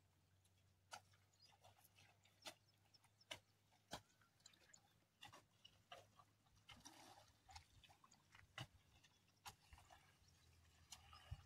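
Near silence: faint outdoor background with a low steady hum and scattered soft clicks at irregular intervals.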